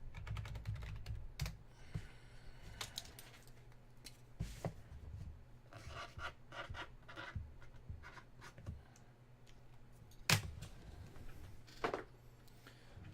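Irregular light clicks, taps and rustling from handling at a desk, with two sharper clacks about ten and twelve seconds in.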